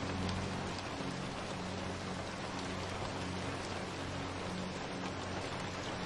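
Steady rain, an even hiss of many drops, with soft low held notes of background music underneath.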